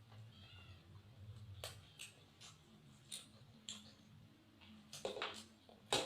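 Eating sounds: scattered short clicks and smacks of chewing, with a louder noisy burst about five seconds in and the loudest one near the end, over a low steady hum.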